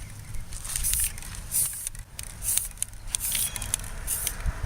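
Aerosol spray paint can hissing in about five short bursts as light coats of paint are sprayed on.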